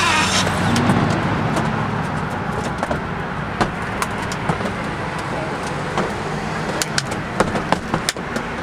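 Steady road traffic hum, with scattered sharp knocks and clanks from boots and the sign panel on a corrugated metal awning. A power drill's whine cuts off with a short falling pitch at the very start.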